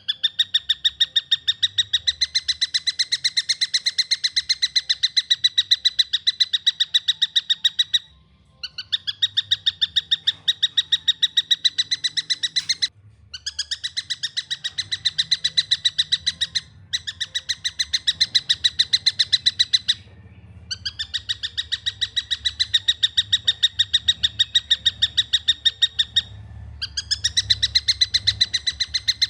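Young tengkek buto kingfisher calling in long runs of rapid, evenly spaced, clear notes, several a second. Each run breaks off with a brief pause before the next begins, about six runs in all.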